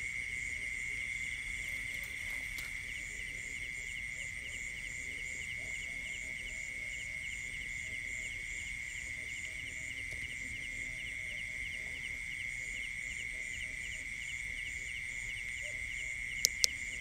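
Night chorus of field insects, crickets among them: a steady high drone with rhythmic chirping pulses over it, several a second. Two sharp clicks come near the end.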